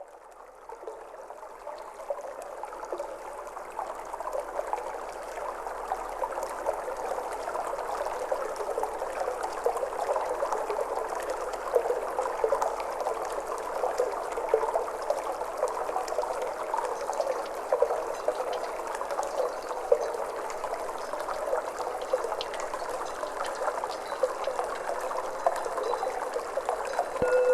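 Flowing water trickling and splashing steadily, fading in over the first several seconds.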